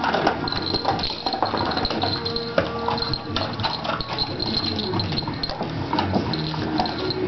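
A small dog's claws clicking and scrabbling on a hard tiled floor as it prances and spins, many quick irregular taps.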